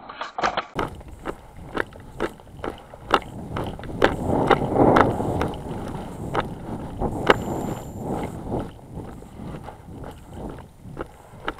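Footsteps through tall dry grass, about two steps a second, over a steady rustle of the grass.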